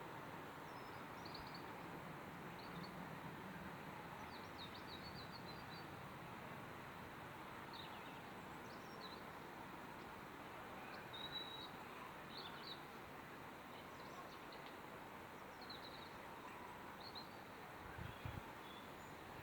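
Faint, steady distant rumble coming from the sky, with small birds chirping now and then and a couple of soft low thumps near the end.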